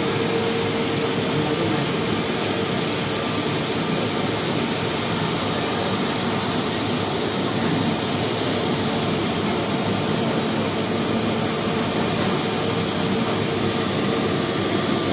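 Jet airliner's turbofan engines running at low taxi power as it rolls slowly: a steady rushing noise with a steady droning tone that fades about two-thirds of the way through.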